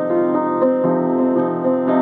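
Upright piano played solo: a flowing line of notes, about four a second, over held lower notes.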